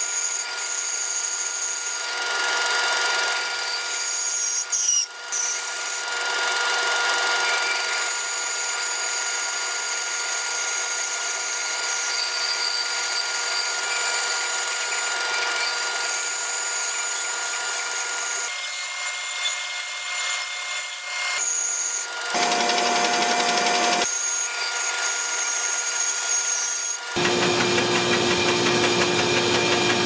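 Bandsaw running and cutting through a wooden plane blank: a steady machine sound with a constant whine. The sound changes abruptly a few times in the second half.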